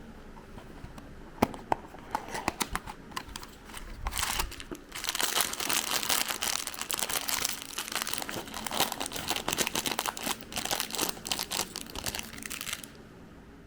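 Product packaging being torn open and crinkled: a few scattered clicks and rustles at first, then several seconds of dense crinkling that stops shortly before the end.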